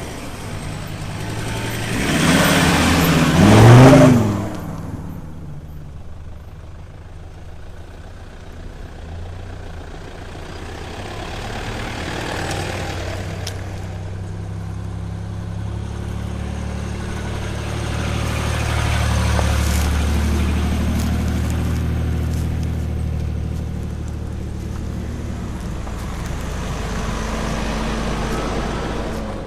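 Four-wheel-drive vehicles driving off on a gravel forest track: one goes by loud and accelerating about three seconds in, then a steady engine drone that swells and fades around twenty seconds in.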